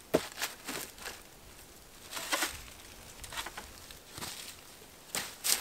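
Scattered crunches and rustles of dry leaf litter and sticks on a forest floor, short crackles about a second apart, with the loudest cluster near the end.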